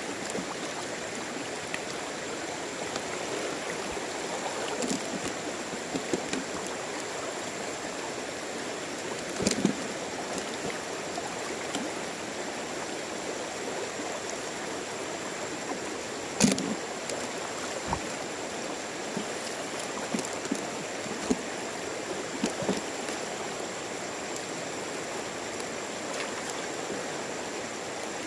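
Shallow river current flowing and rushing steadily around a wader's legs, with a few short, sharp knocks, the loudest about a third and about halfway through.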